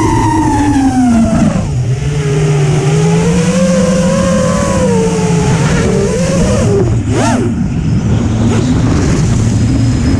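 FPV freestyle quadcopter's motors and propellers whining, the pitch sliding down and wandering with the throttle, then a quick sharp rise and fall about seven seconds in as the throttle is punched.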